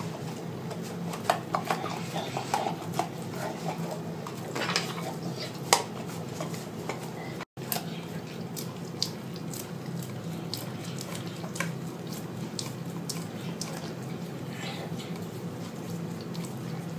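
Doberman licking yogurt from a plastic tub held in a hand: irregular wet tongue smacks and clicks against the plastic, over a steady low hum.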